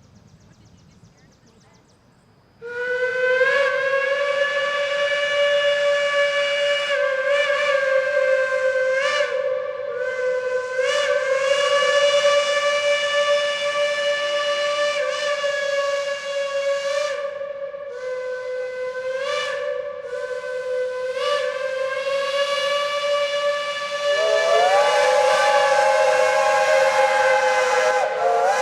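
Steam locomotive whistle blown in long blasts, each broken off briefly and then sounded again. It starts suddenly a couple of seconds in, and near the end a second whistle at a different pitch sounds together with it.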